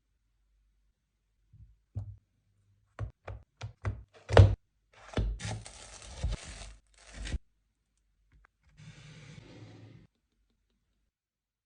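Kitchen food-prep sounds: a run of sharp knocks like a knife chopping on a cutting board, quickening and loudest about four and a half seconds in. A couple of seconds of noisy rustling with a few more knocks follow, then a softer hiss near the end.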